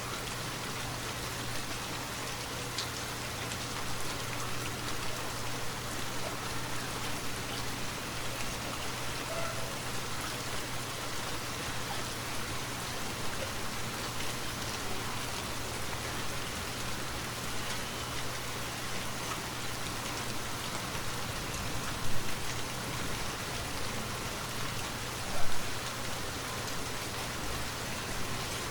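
Steady rainfall, an even continuous hiss of rain. Two brief louder hits stand out in the last third.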